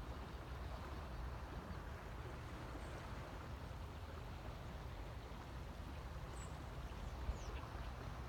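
Steady low outdoor rumble and hiss, with a couple of faint, short, high bird chirps late on.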